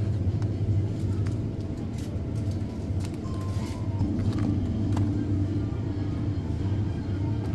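Steady low hum of supermarket refrigerated display cases, with music playing over it and a few light clicks of packaging being handled.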